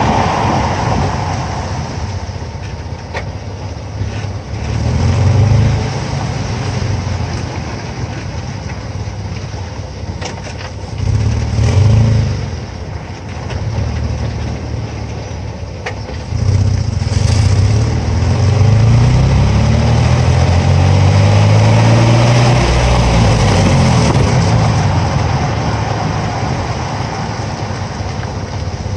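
Tyre roar and engine of a Nissan truck heard from under its rear axle while driving, with two heavier low swells about five and twelve seconds in as it passes over speed bumps. From about sixteen seconds the engine accelerates, its pitch rising for several seconds before settling back to a steady cruise.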